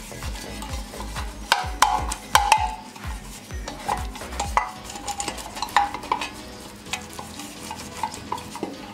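A metal loaf pan being greased with oil: a run of quick brushing and rubbing strokes against the pan, with light metallic clicks, busiest a couple of seconds in.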